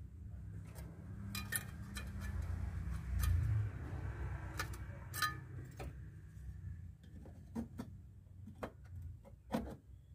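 Light, irregular clicks and taps of a steel repair bracket being handled and pressed against a rusted car body as it is test-fitted, over a low steady rumble.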